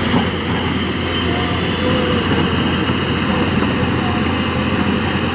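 Diesel engine of heavy construction machinery running steadily with a constant low rumble.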